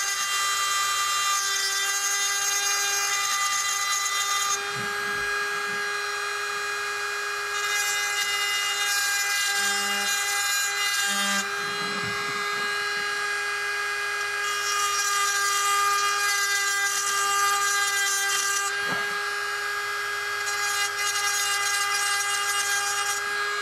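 Pen-style rotary engraving tool running at a steady high whine as its fine bit engraves symbols into a dry cherry-wood spoon handle. A gritty grinding hiss comes and goes in about four spells while the bit is cutting.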